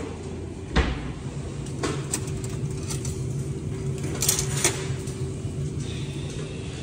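Metal cutlery clinking as spoons and forks are taken from a stainless steel tray, a quick cluster of sharp clinks a little past the middle, over a steady machine hum. A single thump about a second in is the loudest sound.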